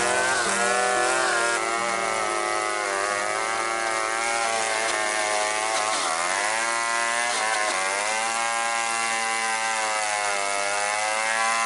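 STIHL 070 two-stroke chainsaw running at full throttle while cutting through an acacia log. Its pitch sags and recovers as the chain bites into the wood, most clearly about six and seven and a half seconds in.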